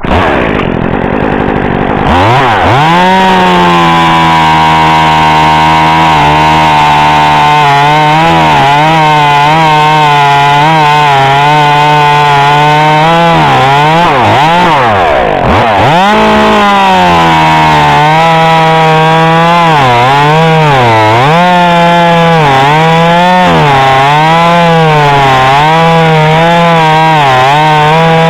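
Echo top-handle two-stroke chainsaw running at high revs: it comes up to speed about two seconds in, dips hard once in the middle, then its pitch wavers up and down again and again as it works in the wood.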